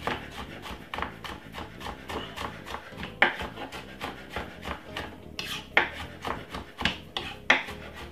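Garlic being prepared by hand: a run of short, irregular rasping scrapes, with a few louder strokes in the second half.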